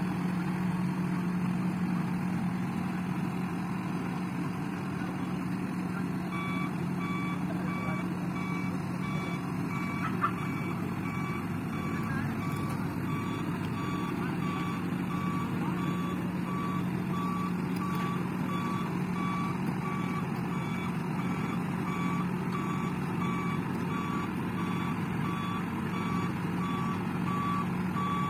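Diesel engine of a Volvo crawler excavator running steadily under load, with its travel or reversing alarm beeping at an even pace from about six seconds in as the machine moves. A single sharp knock about ten seconds in.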